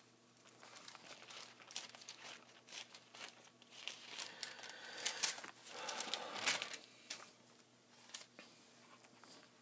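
Bible pages being turned and leafed through: a run of soft, irregular papery rustles and crinkles, loudest in the middle and dying down near the end, as a passage is looked up.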